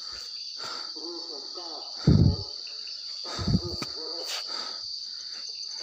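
Crickets chirring steadily in one continuous high-pitched trill. Two short, loud, low thumps come about two seconds and three and a half seconds in.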